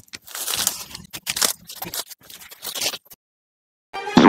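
Rustling of leafy plants and a handful of cassava leaves as people push through undergrowth, in irregular bursts that stop abruptly about three seconds in.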